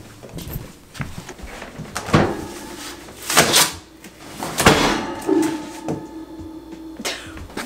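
Cardboard box being opened and its contents handled: a few separate rustling, scraping bursts of cardboard and packing.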